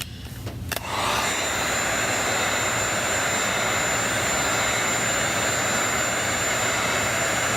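Electric hot-air blower running steadily with a rushing sound and a thin high whine, switched on about a second in and cut off suddenly at the end.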